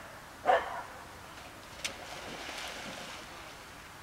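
A dog barks once, sharply, about half a second in. Then there is a faint rushing hiss with a single click near the two-second mark.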